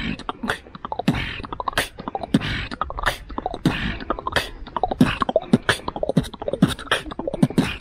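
A man beatboxing: a fast run of sharp percussive mouth clicks and hits, mixed with short voiced notes.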